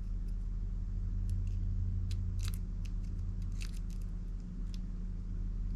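Faint, scattered small clicks and ticks of fingers turning a tiny cartridge mounting screw into its nut on a turntable headshell, over a steady low hum.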